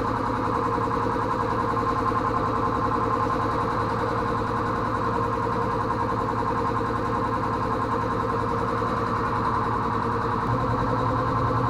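A machine running steadily with a constant, unchanging hum.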